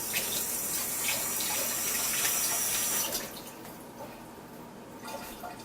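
Kitchen tap running in a steady hissing stream into the sink, shut off about three seconds in.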